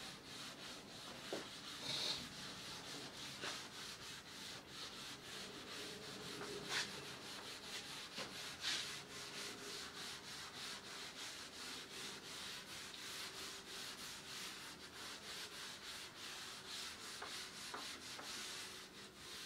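Eraser rubbing back and forth in many quick strokes, wiping the previous problem's working off the writing surface.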